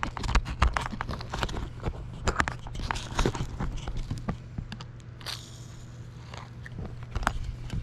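Irregular clicks, knocks and scrapes of hands-on handling work, with a steady low hum underneath.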